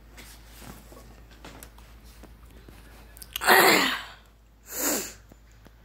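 A person sneezing twice: a loud sneeze a little past halfway and a shorter one about a second later.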